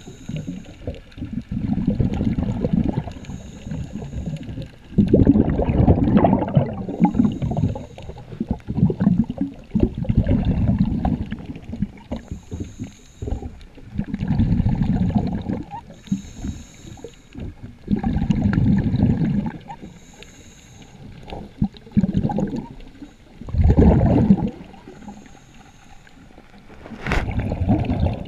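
Scuba diver breathing through a regulator underwater: each exhalation sends out a burst of bubbles, a low bubbling rumble of a second or two, about every three to four seconds, with a short faint hiss between the breaths.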